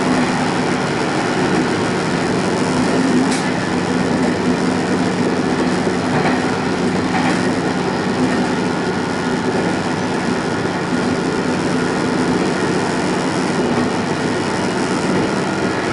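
Diesel railcar running along the line, heard from inside: a steady engine hum under the rumble of the wheels on the rails, with a faint click about three seconds in.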